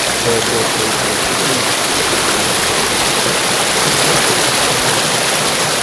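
Fast-flowing river water rushing over rocks near a waterfall: a steady, loud rush.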